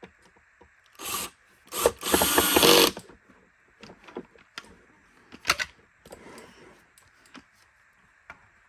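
Screwdriver driving screws back into a vacuum cleaner's plastic base: a short run about a second in and a longer run of about a second just after, then scattered clicks and taps as the screws and parts are handled.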